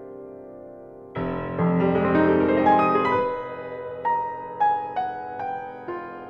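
Solo piano music. A held chord dies away, then about a second in a full chord with deep bass comes in, followed by single melody notes struck one after another.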